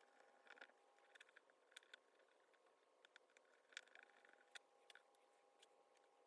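Near silence with faint scattered clicks and light scrapes of a small precision screwdriver driving the tiny screws that hold an iPad's LCD panel.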